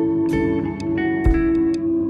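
Background music with plucked guitar-like notes over a held tone, with two short low thumps, one about a third of a second in and one just after a second in.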